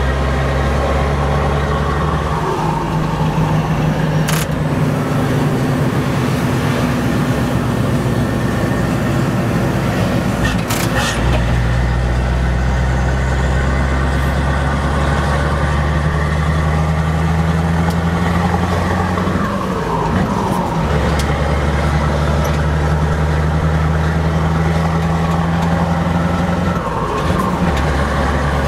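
Scania 164L 580's V8 diesel on open exhaust pipes, heard from inside the cab while the truck is under way. The engine note climbs slowly as it pulls and falls away several times, as at gear changes, with a couple of short clicks.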